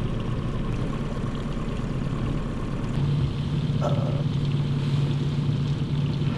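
Small outboard kicker motor running steadily at slow trolling speed, a low hum whose pitch shifts slightly about three seconds in.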